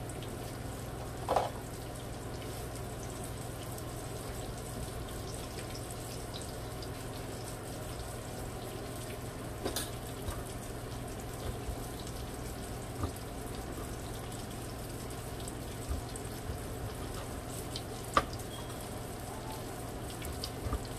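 Breaded tilapia fillets frying in oil in a skillet: a steady sizzle with a few sharp pops.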